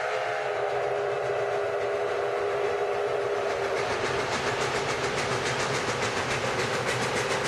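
Ex-Canadian National 0-6-0 steam locomotive #7470 at speed: its steam whistle chord sounds and fades away about three and a half seconds in. Then the engine's rapid, rhythmic exhaust chuffing takes over and grows louder as the locomotive approaches.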